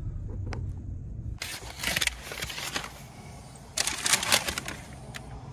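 Low rumble inside a car cabin, with two short bursts of rustling handling noise, one about a second and a half in and another about four seconds in.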